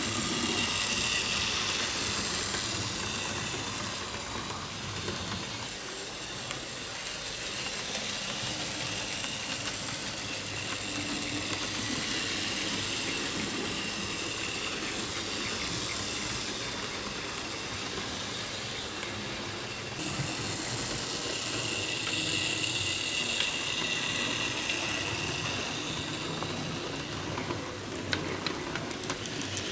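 HO scale model steam trains running: steady steam hiss from the locomotives' sound decoders mixed with wheel noise on the track, swelling three times as the trains pass, with a run of sharp clicks near the end.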